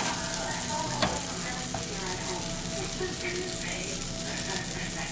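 A pat of butter sizzling as it melts on a hot griddle, a steady high hiss with fine crackling pops.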